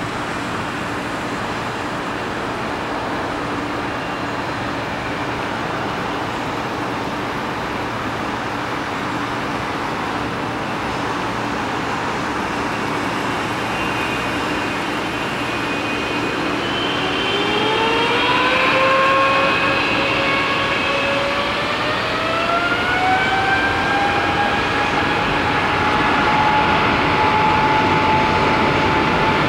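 Boeing 777-200LR's GE90 turbofan engines running at low thrust with a steady rumble. About halfway through they spool up for takeoff: the fan whine rises in two steps, then holds high and steady, and the roar grows louder as the takeoff roll begins.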